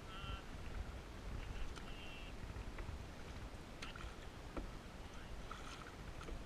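Wooden canoe paddle strokes on a lake, the blade dipping and pulling through the water with light splashing, over a low rumble of wind on the microphone. A few sharp knocks come near the middle, and there are short high chirps.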